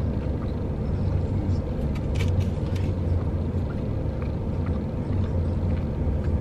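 Steady low hum of a car idling, heard from inside the cabin, with a few faint clicks of chewing and handling food.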